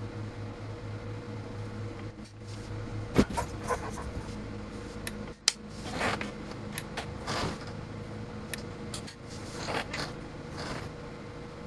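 Electrical surge-test bench: a steady hum that cuts off with a sharp click about three seconds in, then scattered clicks and knocks, the sharpest about five and a half seconds in.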